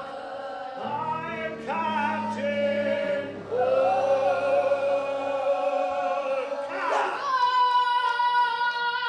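Children's stage cast singing a musical number over instrumental accompaniment, holding long notes; about seven seconds in the voices slide up into a long, high held note.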